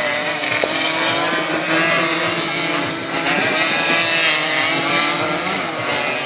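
Several motorcycle engines running and revving together, their pitches wavering and overlapping, over a steady hiss.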